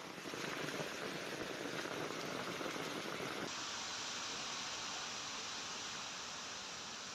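Heavy rain falling, a dense pattering hiss. About three and a half seconds in, the sound changes abruptly to a smoother, steadier hiss.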